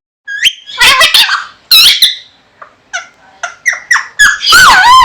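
Pet parrot giving a rapid run of high-pitched squawks and chirps, about a dozen short calls that sweep up and down in pitch, with a longer, louder call near the end.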